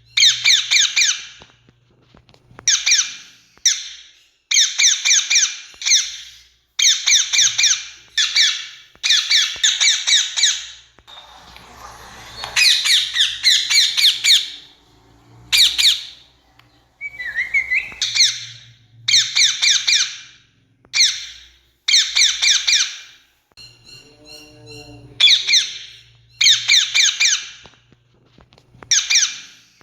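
Rose-ringed parakeets (Indian ringneck parrots) calling: shrill, harsh screeches in quick runs of several notes, one run after another with short pauses between.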